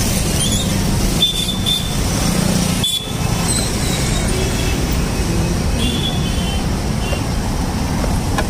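Steady road traffic noise from a busy city street.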